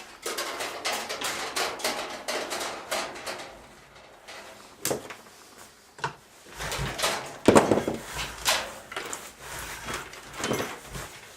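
A white 14-gauge copper conductor is fed into a TNT wire stripper and pulled through its blade with pliers, the insulation being slit. It makes a dense run of scraping clicks for the first few seconds, then goes quieter, with a few sharp knocks and clatters of the tools, the loudest about seven and a half seconds in.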